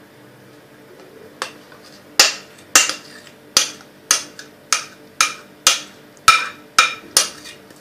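A spoon knocking against the side of a mixing bowl as thick cheesecake filling is scraped out of it: a run of sharp taps, about two a second, starting about a second and a half in.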